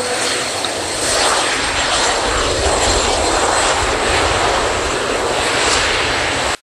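Jet noise from a Cessna A-37B Dragonfly's twin General Electric J85 turbojets: a loud, even rush that grows deeper about two seconds in, then cuts off suddenly near the end.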